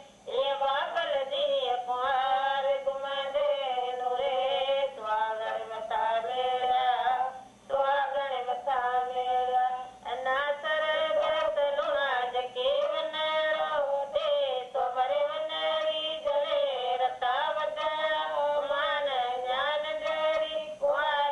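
A woman singing a folk song unaccompanied, long wavering high notes in phrases with short breaks between them, heard through a TV set's speaker with a thin, muffled tone.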